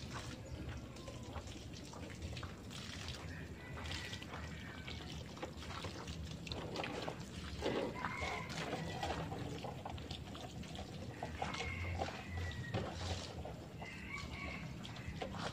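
Water from a garden hose spraying and splashing onto a motorcycle as it is rinsed, the splashing changing as the spray moves over the bike.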